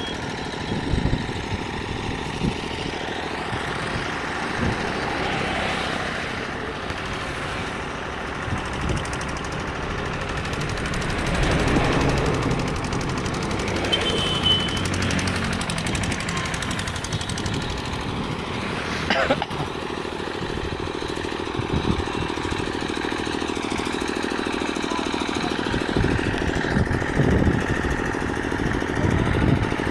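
An engine running steadily, with occasional short knocks.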